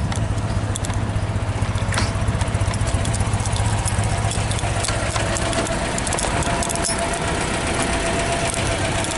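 Citroën 2CV's air-cooled flat-twin engine idling steadily, a low, even running note.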